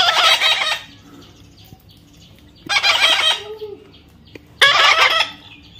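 Pet parrot squawking: three loud, harsh calls, each under a second long, with short pauses between them.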